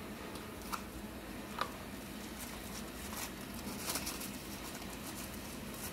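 Light rustling and a few soft clicks as a new spindle bearing is taken out of its cardboard box and wrapping, over a steady low shop hum.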